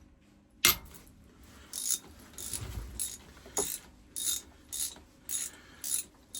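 Ratchet wrench ratcheting in a run of short strokes, about two a second after a first sharp click, as bolts are worked loose on an Onan marine generator during its teardown.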